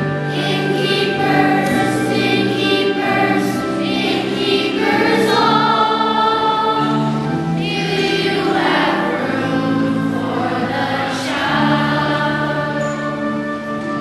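Children's choir singing together, with long held notes.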